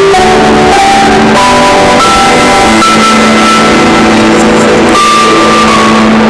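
Background music: guitar with some drums, a melody of held notes that changes every second or so over a steady accompaniment.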